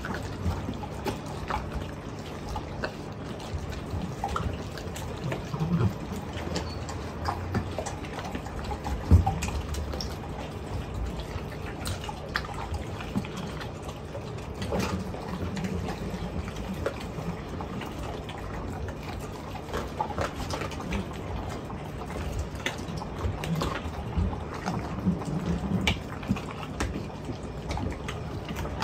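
Mastiffs eating raw chicken: wet, sticky chewing and smacking with irregular crunches and clicks, over a low steady hum.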